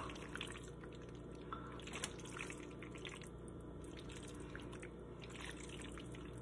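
Faint wet squelching and scattered small ticks of noodles being stirred through a thick cheese sauce in a frying pan with a silicone spatula.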